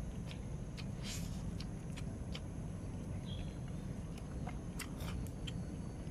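A person chewing a mouthful of food, with irregular soft mouth clicks and smacks over a steady low rumble.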